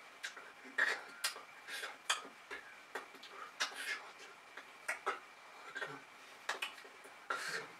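Irregular soft taps, light slaps and brushing rustles, a few a second, from a sign-language signer's hands striking and brushing against each other and the shirt while signing.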